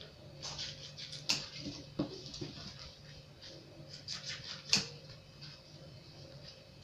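Kitchen scissors snipping: a few sharp clicks and soft rustling as bread is cut into cubes and a plastic sachet is cut open, over a faint steady hum.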